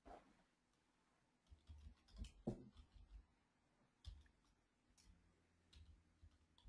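Near silence with faint, scattered clicks and taps of a computer keyboard and mouse as text is edited; the loudest taps come about two and a half seconds in.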